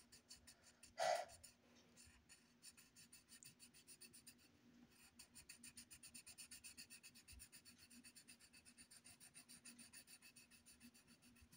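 Colored pencil shading on paper: faint, quick back-and-forth scratching strokes, several a second. A brief louder sound about a second in.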